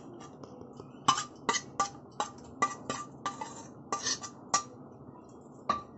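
A metal spoon knocking against steel bowls as grated potato is tipped out of one bowl into another: about a dozen sharp clinks, each with a short metallic ring.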